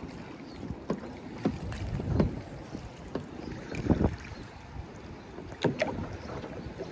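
Fishing kayak on the water: low wind rumble on the microphone with a few light knocks, the loudest about four seconds in.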